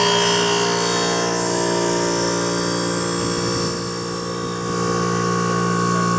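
Vintage window air conditioner's AK reciprocating compressor running with its fan, just after starting: a steady hum made of several fixed tones. The sound dips a little about four seconds in, then comes back up.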